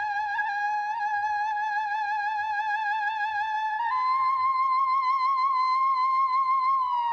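Background music: a single melody instrument holding one wavering high note, stepping up to a higher held note about four seconds in and sliding down near the end.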